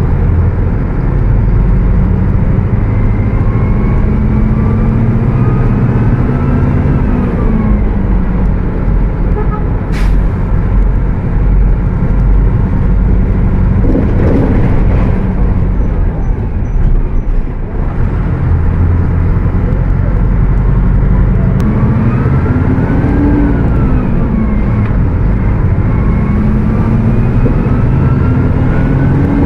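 Mercedes-Benz OF 1722M bus engine running at high revs under way, its pitch climbing and then dropping at gear changes, twice, before climbing again near the end, with a high whine rising and falling along with it. A sharp click about ten seconds in.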